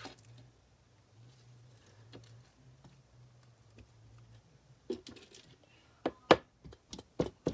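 Handling noise as slime is moved into another container: a faint low hum, then from about five seconds in a quick run of sharp clicks and taps.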